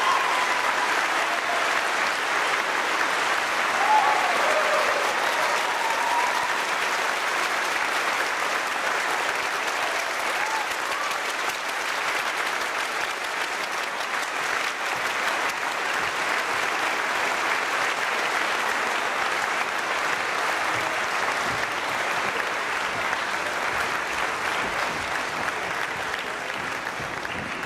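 Audience applauding steadily in a hall, with a few short voices calling out in the first several seconds; the clapping eases off a little near the end.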